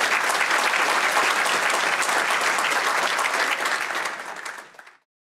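Audience applauding, many hands clapping at a steady level, fading out and stopping just before the end.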